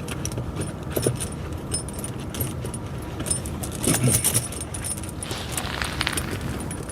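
Steel links of a pewag Doppelspur tractor tire chain clinking and jangling as the chain is pulled over the tire tread, with a louder flurry of clinks about four seconds in. A steady low hum runs underneath.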